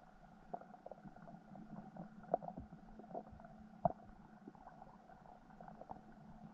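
Underwater ambience through a submerged camera: a steady muffled hum with scattered small clicks and pops, two sharper pops about two and four seconds in.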